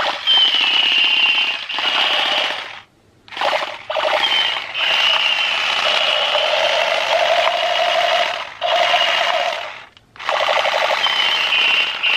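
Battery-powered toy assault rifle playing its electronic machine-gun sound effect through a small speaker: rapid automatic-fire stutter with a high electronic tone over it, in several bursts of one to four seconds broken by short gaps as the trigger is pulled and released.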